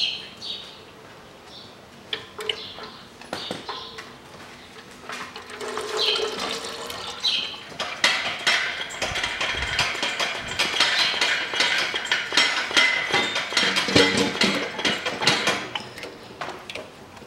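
Gear oil draining from a manual gearbox's drain hole into a steel basin: a steady splashing pour that builds about halfway through and eases off near the end. It is preceded by light clicks and clanks as the drain plug comes out and the metal basin is set in place.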